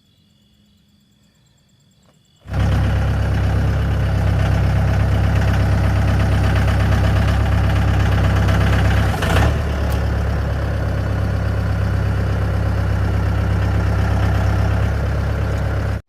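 An engine running steadily at constant speed. It cuts in abruptly about two and a half seconds in, with a brief dip and click about halfway through.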